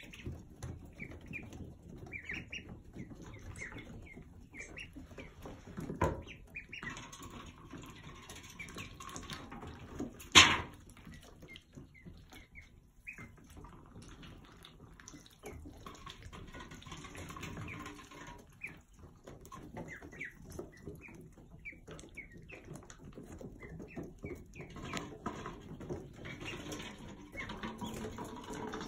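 Ducklings peeping, many short high chirps scattered throughout. Two sharp knocks cut across them, a softer one about six seconds in and a louder one about ten seconds in.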